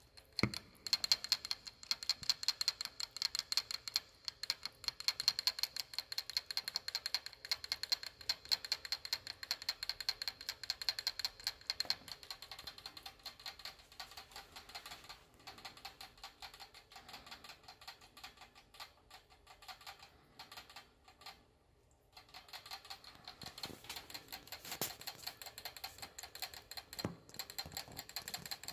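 Pet rat drinking from a cage water bottle, its tongue working the sipper spout in a fast, steady run of clicks. The clicking stops for a couple of seconds about two-thirds of the way through, then starts again.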